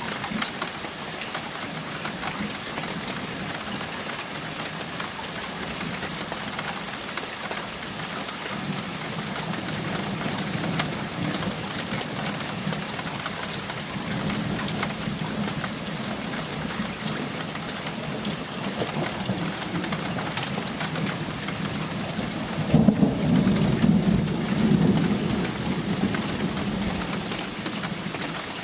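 Thunderstorm: steady rain falling with scattered drop ticks, and low rumbles of thunder that swell and fade. The loudest rumble comes about three quarters of the way through and lasts a few seconds.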